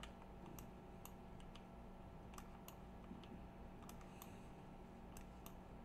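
Faint computer mouse clicks, irregular, about two a second, over a quiet steady electrical hum.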